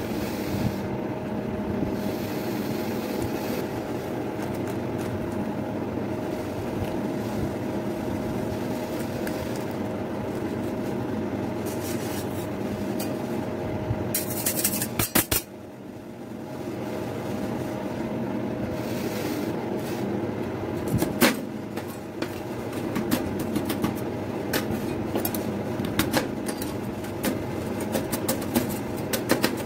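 Steady hum of a rolled-ice-cream cold plate's refrigeration unit running. In the second half, metal spatulas repeatedly tap and scrape on the steel plate, chopping biscuits into the freezing mix.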